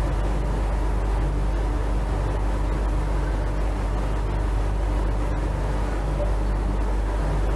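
Steady low hum with an even hiss over it, unchanging throughout, with no speech.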